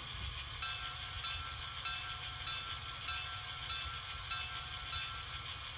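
Simulated locomotive bell from a SoundTraxx Tsunami2 sound decoder in an HO scale Fairbanks-Morse H16-44 model, ringing steadily about once every 0.6 seconds through the model's small speaker, over a low steady rumble.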